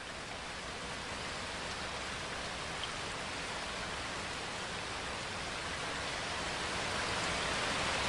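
Steady rain falling, an even hiss that slowly grows louder.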